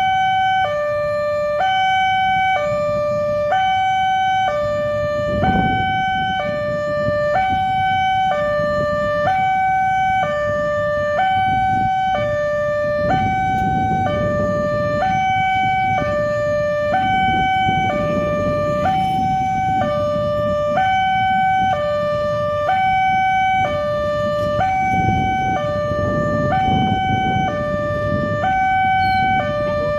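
Railway level-crossing warning siren sounding a steady two-tone hi-lo alarm, switching between a higher and a lower tone about once a second: the signal that a train is approaching and the crossing gate is closing. A rumble of road traffic runs underneath.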